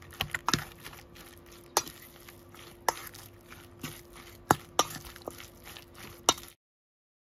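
Metal spoon knocking and scraping against a stainless steel mixing bowl while stirring a minced salmon fish cake mixture, with sharp clinks at irregular intervals, about seven in all. The sound cuts off suddenly near the end.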